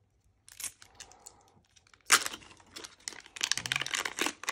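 Shiny plastic-foil wrapper being peeled and torn off a LOL Surprise ball, crinkling and crackling; a sharp rip about two seconds in, then denser, steady crinkling toward the end.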